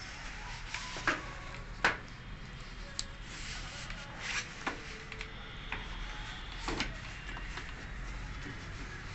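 Handling noises: about half a dozen scattered sharp clicks and light knocks over a low steady hum.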